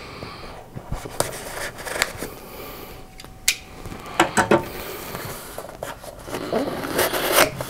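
A knife blade slitting the packing tape on a small cardboard shipping box, with scraping and short sharp clicks. Then the cardboard box is gripped and its flaps worked open, the cardboard snapping loudest in bunches near the middle and near the end.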